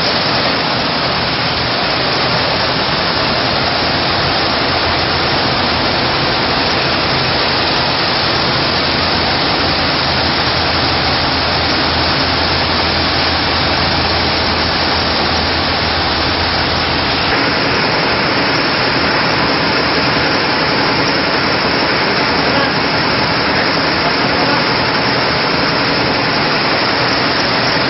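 High-speed industrial multi-needle chainstitch smocking and shirring machine running steadily with a dense mechanical whirr. A deep hum underneath drops away about two-thirds of the way through.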